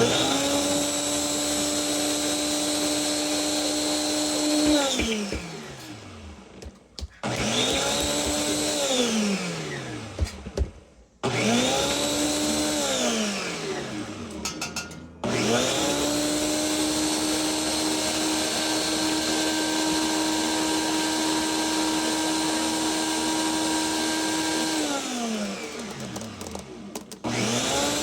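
Countertop blender motor blending frozen mango chunks with honey and water that have not been mixing. It runs in repeated bursts, four stops and starts, each with a steady whine that falls in pitch as the motor winds down; one long run of about ten seconds comes past the middle, and it starts again near the end.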